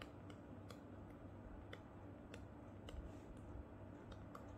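Stylus tip clicking and tapping on a tablet screen during handwriting: a dozen or so faint, irregular clicks over a steady low hum.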